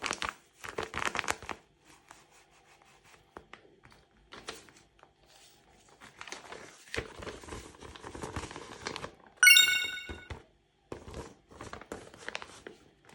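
Paper crinkling and tearing in irregular bursts as a paper blind bag is handled and opened. About nine and a half seconds in, a brief high chiming sound effect, the loudest moment, cuts in for under a second.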